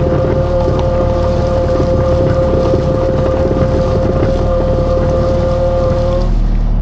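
Rented skid steer's engine running steadily, with a steady whine over it that stops about six seconds in.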